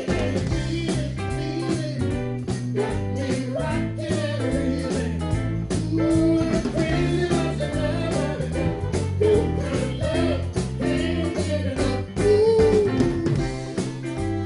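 Live band playing a jazz-blues groove: an electric bass guitar carries a busy line of stepping low notes, with a hollow-body electric guitar and drums; a melodic line bends above them.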